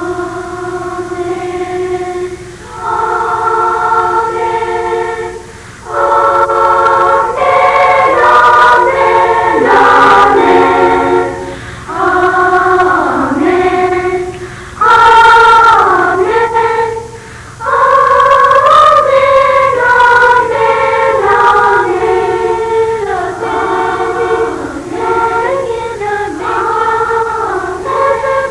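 A school choir singing a song in several voices, sustained notes in phrases with brief breaths between them.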